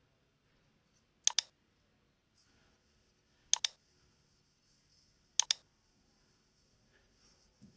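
Computer mouse clicking: three quick double clicks about two seconds apart, sharp and distinct against a quiet room.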